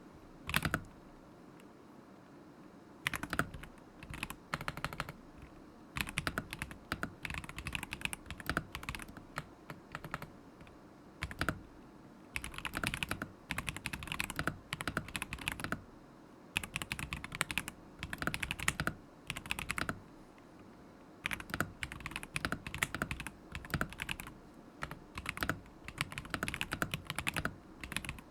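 Typing on a stock KZZI K75 Pro mechanical keyboard with Moment linear switches: bursts of quick keystrokes with pauses of a second or two between them.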